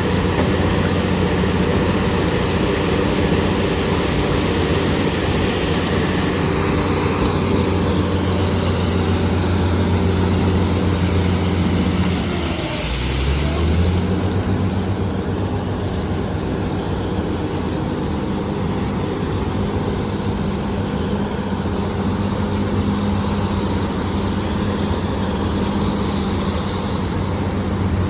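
BEML BD355 crawler bulldozer's diesel engine running under load, with a high whine above it. About halfway through the revs drop sharply and pick up again.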